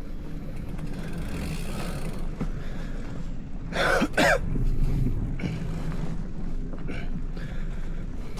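A person coughs twice in quick succession about halfway through, over a steady low rumble.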